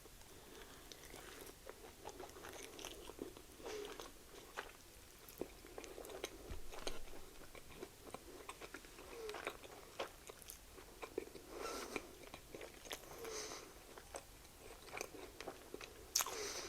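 Close-up eating sounds: a man biting into and chewing a blackened chicken sandwich, with soft wet mouth clicks and smacks at an irregular pace.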